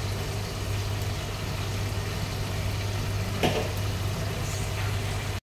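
Steady low engine hum of construction machinery running, with one short sharp sound about three and a half seconds in. The sound cuts off abruptly near the end.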